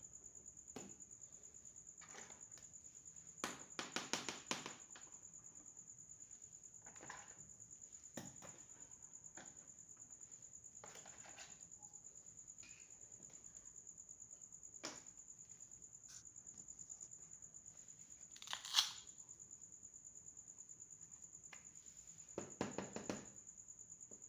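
Small plastic toy kitchen pieces being handled and set down: faint clicks and taps in a few short clusters, with one sharper click about three-quarters of the way through. A steady high-pitched whine sits underneath.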